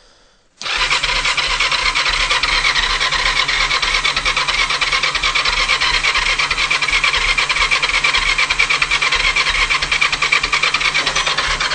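Kawasaki GPZ500's parallel-twin engine being cranked on its electric starter, a steady fast-fluttering whir that starts about a second in and keeps going without the engine catching. It is the sound of a no-start: the engine turns over but does not fire.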